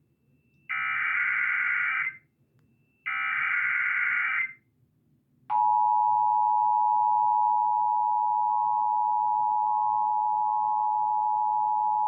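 Emergency Alert System test on broadcast TV: the last two of the three digital SAME header bursts, each about a second and a half long with a short gap between them. About five and a half seconds in, the steady two-tone EAS attention signal (853 and 960 Hz) begins and holds.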